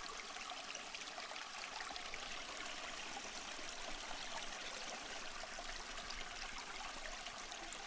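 A stream flowing and trickling steadily, a soft even rush of running water.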